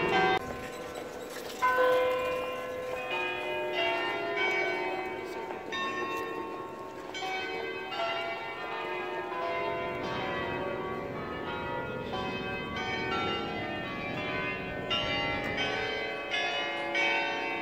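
Tuned bells ringing a melody: a steady run of single ringing notes at changing pitches, one after another.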